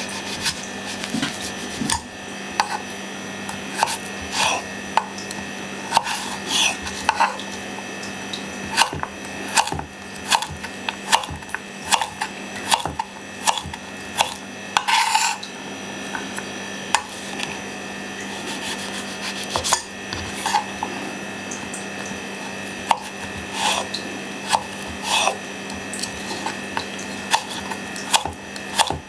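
Kitchen knife dicing radishes on a wooden cutting board: irregular crisp taps as the blade cuts through the radish and meets the wood, with a faint steady hum underneath.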